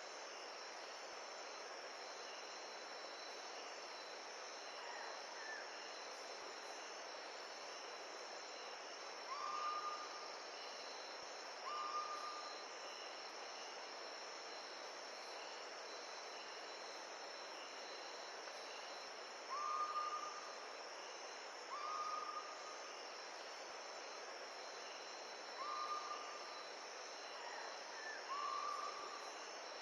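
Natural outdoor ambience: insects chirring steadily over an even hiss. A short whistled call comes in pairs, the two notes about two seconds apart, three times.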